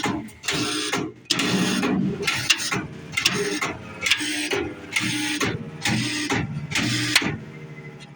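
Thunderbolt siren running in pulse cycle: a single solenoid opens and shuts the air port, giving sharp-edged bursts of rushing air about once or twice a second. The pulsing stops about seven seconds in, leaving a steady low hum.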